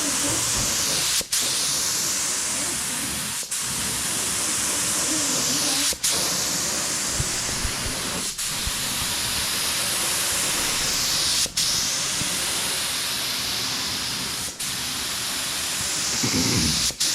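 Compressed-air blasting or spray gun hissing steadily, with very short breaks every two to three seconds.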